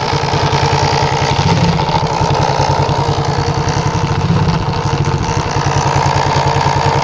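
Shineray motorcycle engine running steadily at idle with an abnormal mechanical noise from the magneto cover, where a loose part is later found.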